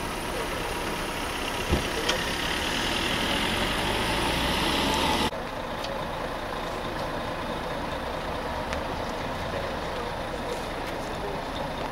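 Vehicle engine noise that grows louder and then cuts off suddenly about five seconds in, giving way to a steady diesel engine idle from a coach bus.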